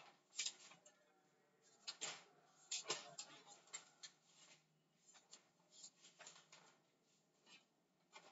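Faint, irregular scratching strokes of writing, in short clusters, over a near-silent room.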